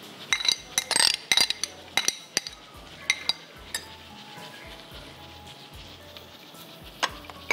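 A spoon clinking against a bowl, several quick clinks in the first couple of seconds and a few scattered ones after. A quieter stretch follows, then one more clink near the end.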